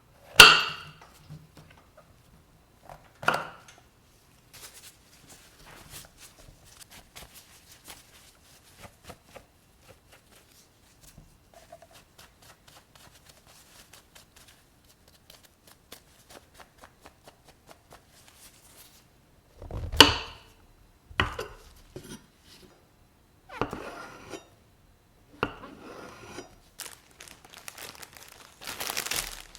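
Kitchen food-prep handling sounds: a few sharp knocks of dishes or containers set down on a counter, with light tapping and rustling in between, and a steady crinkling rustle starting near the end.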